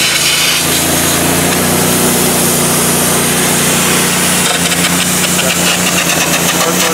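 Steady, harsh noise of an electric arc burning on the steel excavator boom, with the Miller Trailblazer 302 Air Pak engine-driven welder running underneath as a steady low hum whose pitch shifts slightly about halfway through.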